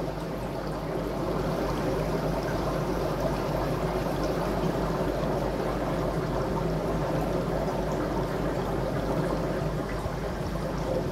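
Aquarium filter running: a steady trickling of moving water with a low steady hum underneath.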